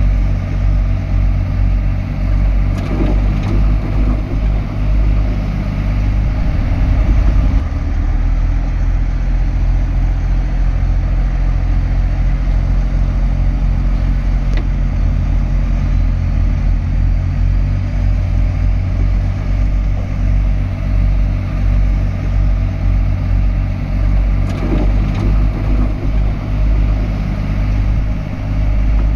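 Shantui DH17C3 bulldozer's diesel engine running steadily and deep, with a brief swell in level about seven seconds in and a few faint knocks.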